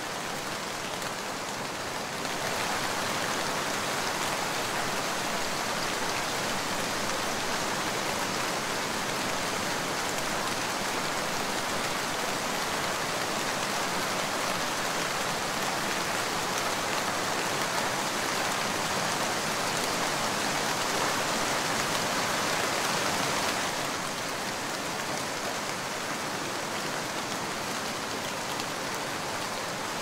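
Steady rain falling in a dense patter. It gets heavier about two seconds in and eases slightly again near the end.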